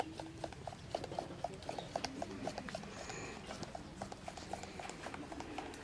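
Wood fire crackling in a clay chulha stove: a steady run of small, irregular pops from burning split sticks.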